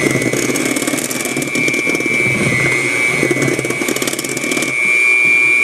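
Electric kitchen mixer motor running steadily with a high whine, churning a flour-and-butter pastry dough that has not yet come together.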